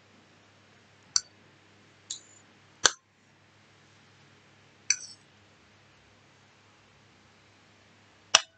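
Metal fork clinking against a plate five times as it cuts into and picks up humita. Each clink is short and sharp with a brief ring, and the last is the loudest.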